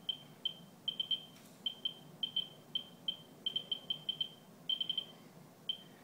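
Ludlum Geiger counter with a pancake probe clicking out its counts as short, high beeps at random, uneven intervals, about five a second. That is a rate of about 300 counts per minute, roughly ten times background, picked up from rainwater soaked into a paper towel.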